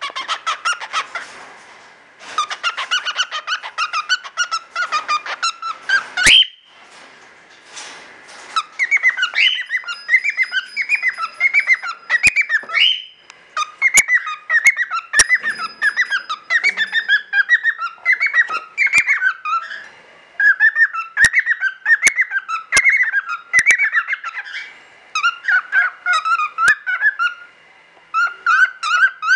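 Male cockatiel singing its courtship song: fast runs of short chirping, warbling whistles in phrases of a few seconds with brief pauses between them. Single sharp clicks are scattered through the song.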